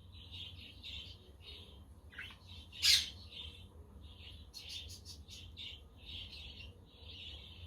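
A flock of budgerigars chattering in a steady stream of short chirps and warbles, with one loud, harsh squawk about three seconds in.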